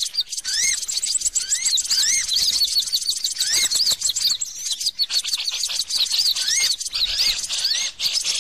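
Bird-lure recording of songbirds calling: dense high chirping and rapid chattering, with a short rising-and-falling whistled note repeating about once a second.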